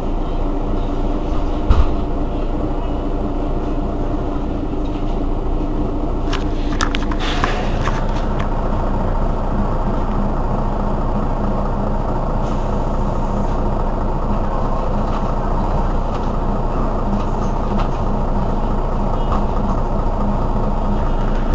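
Mercedes-Benz Citaro city bus engine idling steadily while the bus stands at a stop. There is a brief hiss about seven seconds in, after which the engine note changes slightly.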